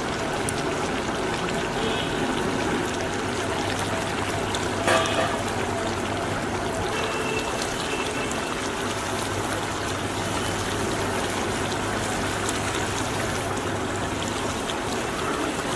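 Chicken masala gravy simmering in a partly covered pan, a steady bubbling and sizzling, with a single sharp knock about five seconds in.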